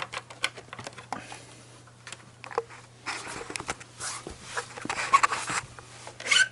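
Cables and connectors being handled and plugged into the back of a server: scattered sharp clicks and knocks with a few stretches of scraping and rustling. A steady low hum runs underneath.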